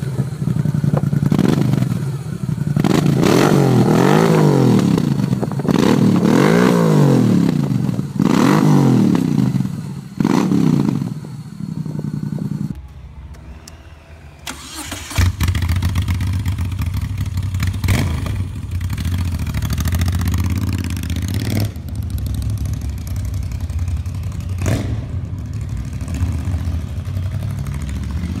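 Moto Guzzi V7's air-cooled 90-degree V-twin revved several times, the pitch rising and falling with each blip of the throttle. After a short lull about halfway through, the engine starts up again and settles into a steady, lumpy idle with a few brief throttle blips.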